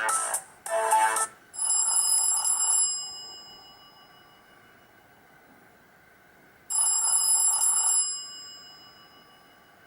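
A Black Fox B5 phone's built-in ringtone, an old-style telephone ring, sounds twice through the phone's speaker about five seconds apart. Each ring lasts about a second and rings out afterwards. It opens with the last notes of a melodic tune ending about a second in.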